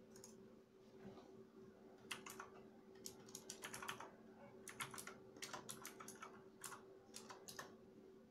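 Typing on a computer keyboard: quick, irregular runs of key clicks starting about two seconds in, over a faint steady hum.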